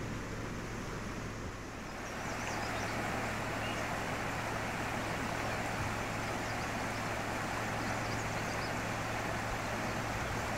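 Steady rushing of a swollen, flooded creek running full, louder from about two seconds in. A steady low hum runs underneath.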